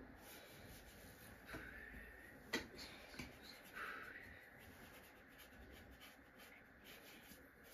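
Faint scratching of paintbrushes working acrylic paint on paper and on a ceramic plate palette, with two light clicks about two and a half and three seconds in; otherwise near quiet.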